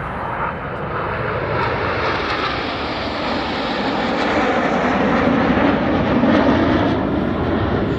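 Frecce Tricolori's Aermacchi MB-339 jets flying past, their engine noise swelling steadily and loudest about six seconds in, dropping slightly in pitch as they pass.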